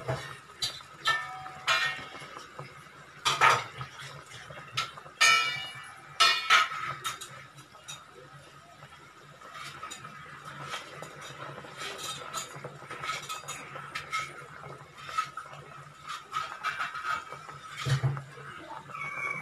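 Prawn curry at a rolling boil in an uncovered metal pot on a gas burner, bubbling and popping. Several sharp metallic clinks come in the first seven seconds, and lighter, quicker ticking follows in the second half.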